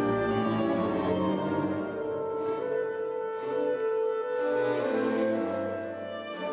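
Symphony orchestra playing a classical piece live, strings and woodwinds holding sustained notes, growing a little softer near the end.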